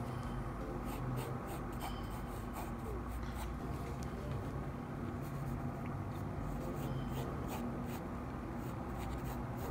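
Mechanical pencil sketching on sketchbook paper: a run of short, quick scratching strokes.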